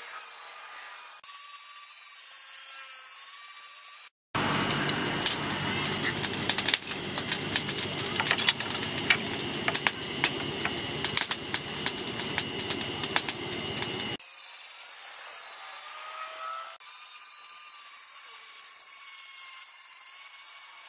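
Angle grinder's abrasive disc grinding a steel axe head cut from a car leaf spring: a steady hissing scrape. After a brief cut about four seconds in, a louder, fuller rasping with many sharp clicks runs for about ten seconds, then the thinner grinding scrape returns.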